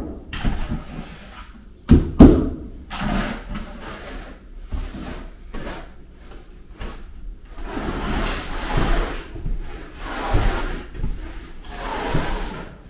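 Steel trowel scooping and spreading thinset mortar on a plywood subfloor: a string of uneven scraping strokes, with a couple of sharp knocks about two seconds in.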